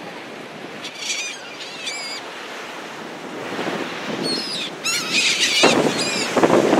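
Gulls calling in short, downward-sliding cries, about half a dozen times, over the steady rush of surf and wind. The surf noise swells louder near the end.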